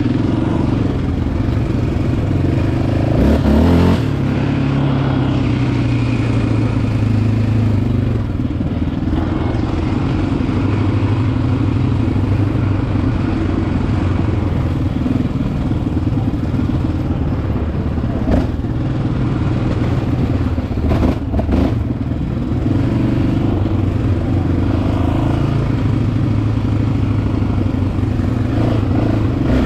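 Yamaha Raptor 700R sport ATV's single-cylinder four-stroke engine running under throttle, the revs rising and easing off, with a few sharp knocks a little past halfway.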